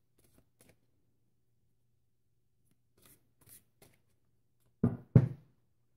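Tarot cards being handled, with faint sliding and rustling, then two quick thumps in close succession near the end.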